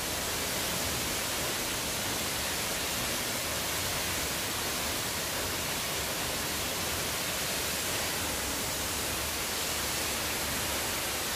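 A waterfall falling from a cliff into a rocky pool: a steady, even rush of water.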